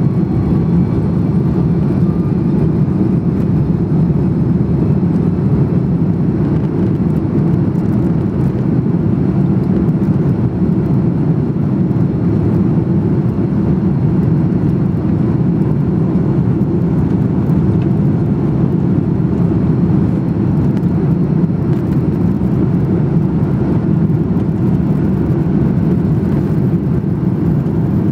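Steady low cabin rumble of an Airbus A330-300's Rolls-Royce Trent 700 engines at taxi power, heard from inside the cabin over the wing. A faint high whine fades out in the first few seconds.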